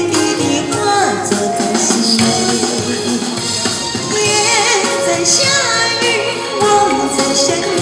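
A woman singing a Chinese pop ballad into a handheld microphone over a recorded backing track, both amplified through a small portable speaker; her held notes waver with vibrato in the second half.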